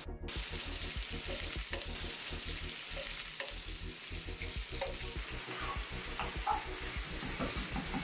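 Chicken drumsticks sizzling and frying in hot olive oil in a steel paella pan as they brown, a steady hiss with occasional small ticks and pops. The sound starts abruptly just after a brief gap.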